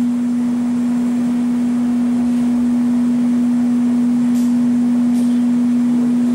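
A loud, steady hum at one low pitch, unchanging throughout, over a faint hiss.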